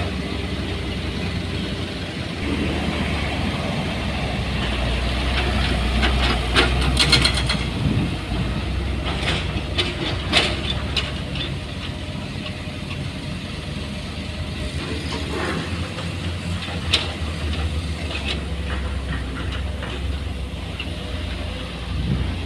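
Heavy machine engine running steadily at a low rumble, with a cluster of sharp clanks and knocks about a third of the way in and a single knock later on.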